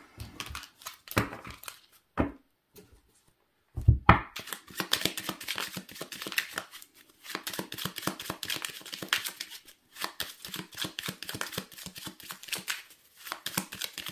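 Lenormand cards being shuffled by hand: a few scattered clicks, a knock about four seconds in, then a dense run of rapid card clicks and rustles.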